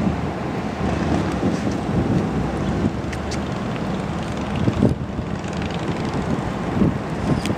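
Wind buffeting the camera's microphone, a gusty low rumble that rises and falls unevenly.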